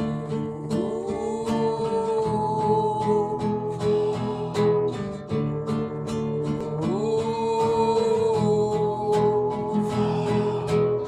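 Acoustic song: a strummed acoustic guitar keeps a steady rhythm under a wordless sung line that slides up into long held notes, twice.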